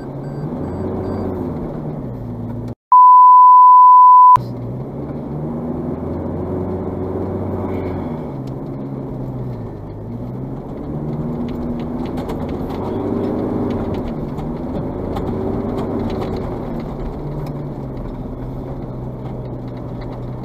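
Four-wheel drive's engine working up a muddy bush track, its pitch rising and falling with the throttle. About three seconds in, a loud steady beep lasts about a second and a half, with all other sound cut out while it plays.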